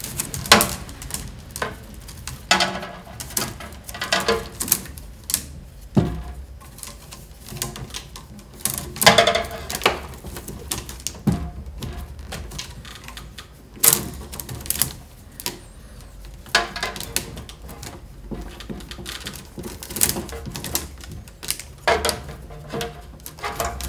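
Peeled willow rods being woven by hand around the stakes of a round basket base: irregular clicks, taps and creaks as the rods are bent and pushed against one another.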